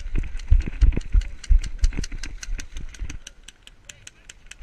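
Airsoft gunfire: a rapid, evenly spaced string of shots, about seven a second, going on through the whole stretch and growing fainter after about three seconds. Heavy low thumps sound under the shots in the first three seconds.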